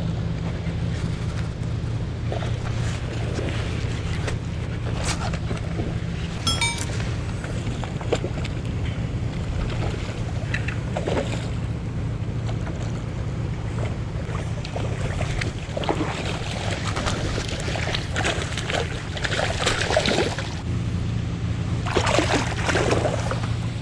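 A steady low motor hum, stronger at the start and again near the end, over the wash of the sea, with scattered clicks and rustles on top.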